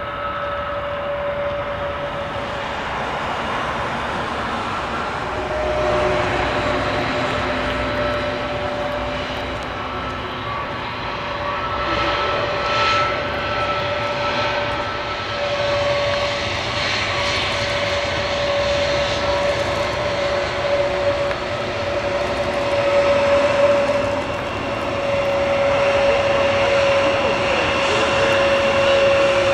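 Airbus A320neo taxiing on its Pratt & Whitney PW1100G geared turbofans: a steady engine whine over a broad jet roar, growing gradually louder toward the end as the aircraft passes closer.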